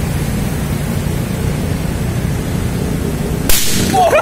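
Motorcycle engine running steadily as its exhaust fills a jumbo rubber balloon, then about three and a half seconds in the balloon bursts with one sharp, loud bang.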